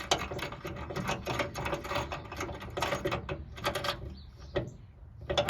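Quick, irregular metallic clicking and rattling of small hardware as a part is screwed onto a hood strut mounting bracket, thinning out to a few single clicks near the end.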